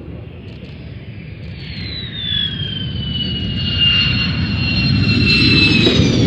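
Military fighter jet approaching and passing overhead: a rising roar with a high engine whine that slowly falls in pitch, then drops sharply near the end as the jet goes by.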